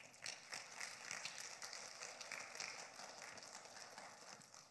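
Faint crackling of a thin plastic water bottle being picked up and opened, with many small clicks and crinkles.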